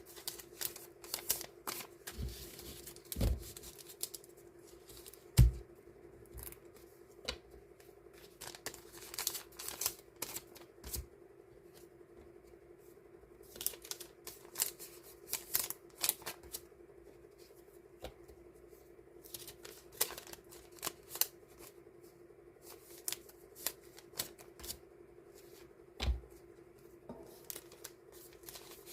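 Die-cut stickers and their paper and plastic packaging being handled and sorted by hand: irregular crisp rustles, clicks and taps with a few soft thumps, over a steady low hum.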